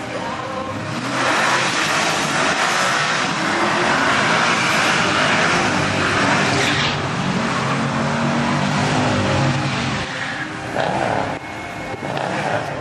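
Holden VZ Calais 6.0-litre V8 doing a burnout: from about a second in the rear tyres spin and squeal under high revs. Around seven seconds the squeal stops and the engine is heard on its own, then it eases off.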